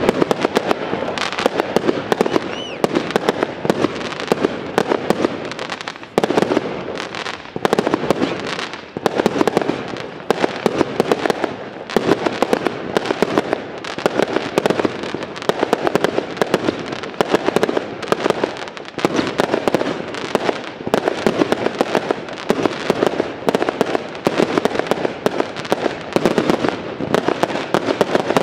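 Aerial fireworks display: shells bursting in rapid, nearly continuous volleys of bangs, with crackling stars between them.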